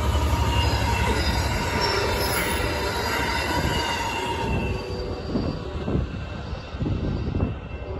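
Amtrak San Joaquin passenger train running over the crossing: steel wheels rumbling and clattering on the rails with a thin squeal. The sound fades over the second half as the last car clears, leaving scattered knocks.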